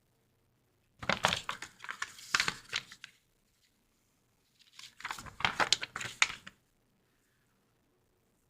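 Crinkling and rustling of thin crinkly material being handled, in two bursts of about two seconds each.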